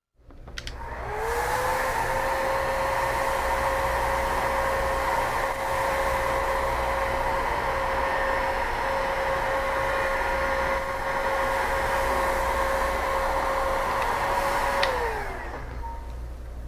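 Electric heat gun running, shrinking heat-shrink tubing over a wire connector. Its fan gives a steady whine over a rush of air. The whine spins up about a second in and winds down near the end as the gun is switched off.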